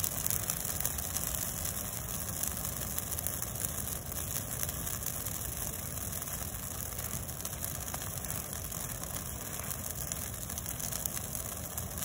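Large bonfire of green pine boughs burning steadily, a continuous low rumble with a hiss over it.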